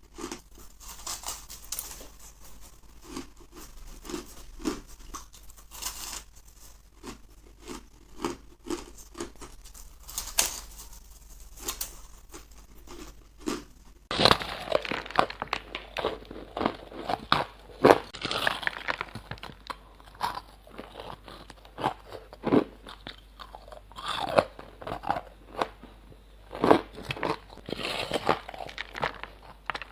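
Ice being bitten and chewed close to the microphone: a continuous series of sharp, crackling crunches. About halfway through the crunches become louder and duller.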